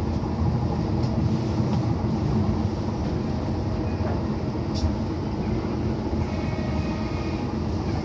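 Docklands Light Railway train running along the track, heard from inside the car: a steady low rumble of wheels and motors, with one sharp click about five seconds in.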